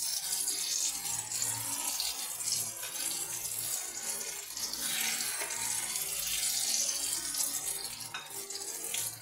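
Marinated eggplant halves frying in hot oil in a nonstick pan, a steady sizzling hiss.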